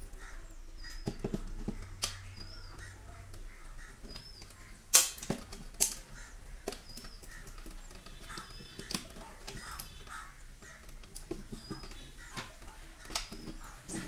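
Clicks and knocks of wires and plastic breaker parts being handled in a wall-mounted distribution board, with one loud knock about five seconds in. A bird calls repeatedly in the background with short high notes, about once every second or two.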